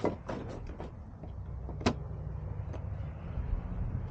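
Several knocks and clicks of parts being handled, with one sharp click about two seconds in, over a low rumble that grows louder near the end.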